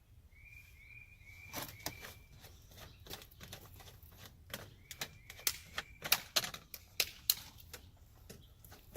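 Irregular clicks and knocks of dry-fitted PVC pipe, fittings and unions being handled and pulled apart, busiest from about four to seven seconds in.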